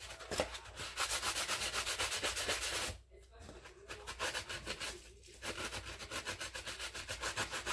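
Sanding sponge scrubbed rapidly back and forth over an old metal cabinet hinge, cleaning it up for painting. Quick rasping strokes, about ten a second, in three spells with short pauses about three and five seconds in.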